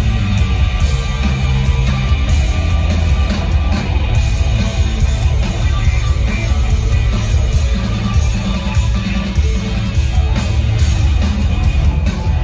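A hard rock power trio playing live: electric guitar, bass guitar and drum kit, loud and continuous, heard from among the audience in a theatre.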